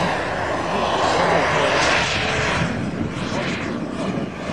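Jet turbine of a radio-controlled Eurofighter Typhoon model flying past, a steady rushing hiss that is loudest about two seconds in, then fades as the jet climbs away.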